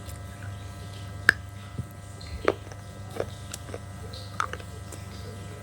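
Close-miked mouth crunching of slate, with a few sharp, irregular crunches spread over several seconds above a steady low hum.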